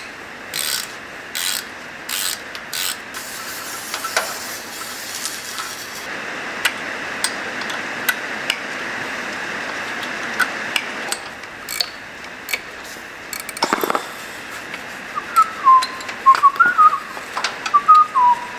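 Hand ratchet wrench clicking in short runs, with small metal tool knocks, as bolts on a turbocharger are worked loose or snugged. Near the end a person whistles a wavering tune over it.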